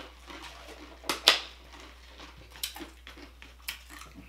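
Ice from a drink being chewed and crunched close to the microphone: a handful of sharp crunches, the loudest about a second in.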